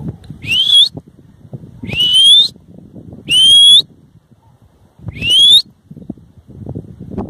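A person whistling four loud, rising whistles of about half a second each, spaced a second or more apart: calls to farm dogs working livestock.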